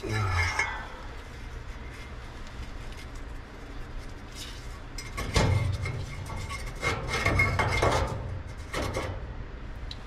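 Metal clinking and rattling as the gas valve and burner manifold are handled and fitted back into an old gas furnace's burner compartment, in several short bursts: one at the start, a louder one around five and a half seconds, another from seven to eight seconds and a brief one near nine seconds.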